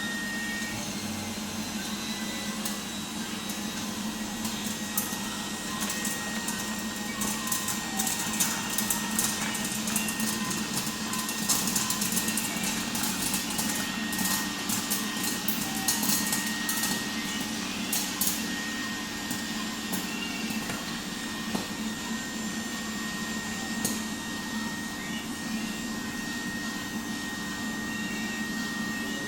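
Popcorn vending machine running with a steady fan-like whir while it makes a bowl of popcorn, with a thin steady high tone over it. Through the middle come many quick sharp pops, thickest about halfway through, then thinning out: the kernels bursting.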